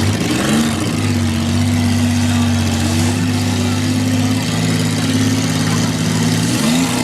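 Demolition derby car engines running at a steady pitch, with a short rise and fall in revs just after the start and again near the end.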